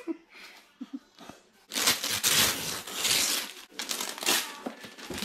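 Wrapping paper crinkling and tearing: a few scattered rustles, then a dense stretch of paper being torn and crumpled from about two seconds in, easing off near the end.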